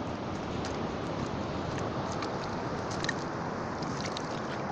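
Wet seaweed squelching and crackling as it is kneaded by hand in a sieve basket under seawater, washing the sand out of it, with water sloshing over a steady rushing noise.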